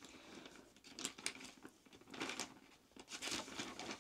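Clear resealable press-lock plastic bag rustling and crinkling as it is handled and items are slipped into it, in a few short, faint crinkles about a second apart.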